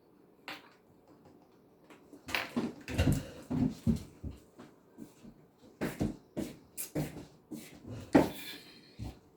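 Close-up eating sounds: wet chewing and lip smacks with a mouthful of rice and smoked fish. The smacks come in quick irregular runs, several a second, starting about two seconds in; the loudest is near the end.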